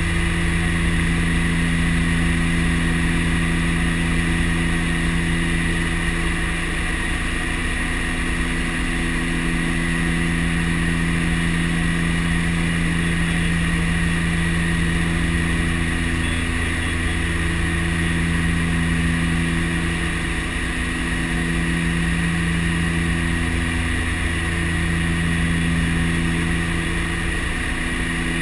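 DHC-6 Twin Otter's twin PT6A turboprop engines and propellers droning steadily, heard from inside the cockpit during the approach to landing. A strong low propeller hum and a higher turbine whine hold steady throughout, the low hum wavering slightly at times.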